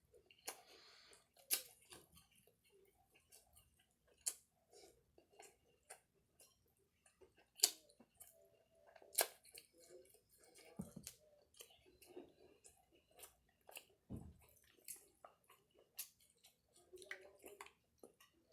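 A person chewing food close to the microphone: faint, irregular wet mouth clicks and smacks.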